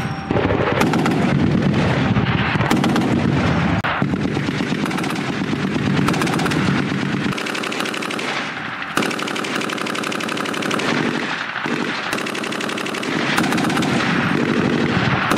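Heavy machine-gun fire from an armoured vehicle's turret in long, continuous bursts, with short pauses between them.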